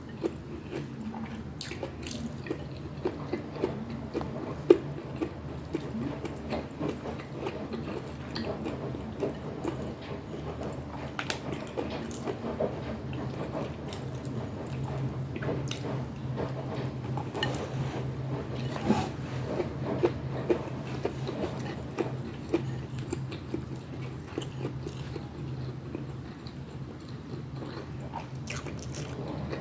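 Close-miked mouth sounds of someone eating pinakbet, with irregular chewing, biting and lip smacks and scattered sharp clicks over a steady low hum.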